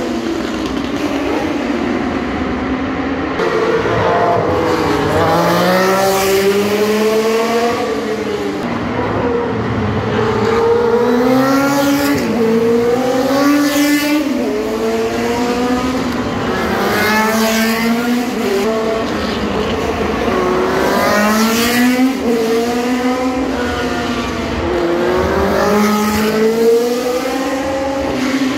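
Several 1966–1972 three-litre Formula One cars' racing engines heard continuously, each one's pitch climbing as it accelerates and then dropping at each gear change, with cars coming and going.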